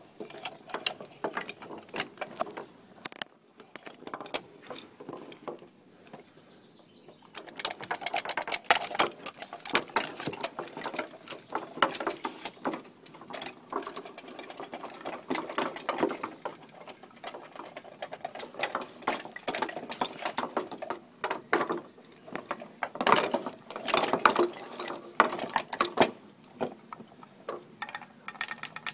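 Wooden marionette dog clattering on wooden deck boards: its carved feet and jointed legs tap, knock and rattle in quick irregular clicks, going quieter for a few seconds before picking up again.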